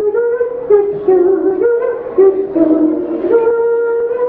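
Music: a melody of held notes stepping up and down, the break between verses of a children's song.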